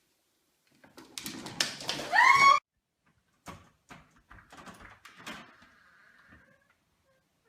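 Scuffling and rustling, then a loud, short, high animal cry that rises and falls and cuts off abruptly. Scattered knocks and taps follow.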